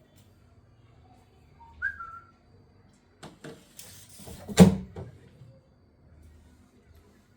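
A brief whistle-like tone, then a run of knocks and clatter with one sharp bang, like a cupboard or door being handled.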